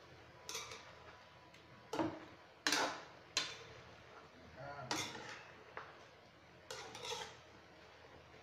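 Metal spoon scraping and clinking against a wok-style pan while chicken pieces are stirred and turned. There are about eight separate strokes, roughly one a second, with a quick cluster near the end.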